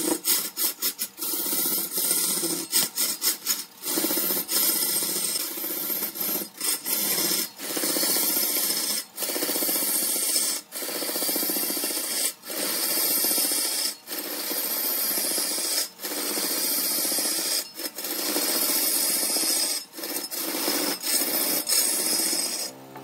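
A turning tool scraping and cutting red incense wood spinning on a large wood lathe: a steady rasping hiss broken by short gaps every second or two.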